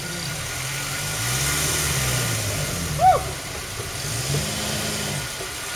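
Open safari jeep's engine running and revving up and down as it moves along a dirt track. About three seconds in, a single short, loud cry falls sharply in pitch over the engine.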